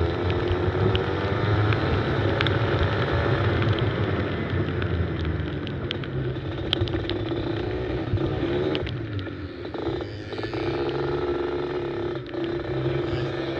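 Go-kart engine heard from an onboard camera, its revs rising and falling through the corners, dropping off about two-thirds of the way in and climbing again, with scattered sharp clicks over it.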